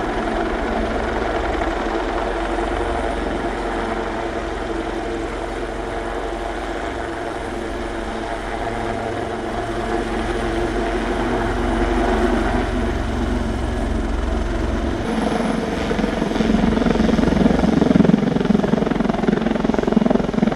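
Royal Navy AW159 Wildcat helicopter flying a display: steady turbine whine and rotor chop, growing louder about three quarters of the way through as it comes closer.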